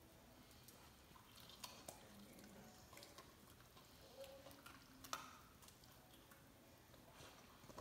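Near silence with a few faint clicks and taps, the clearest about five seconds in: a German Shepherd puppy's claws on a hardwood floor as it noses at an ice cube.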